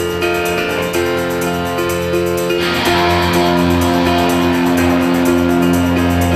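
Music with guitar, playing held chords that change about once a second; the sound turns fuller and brighter a little under halfway through.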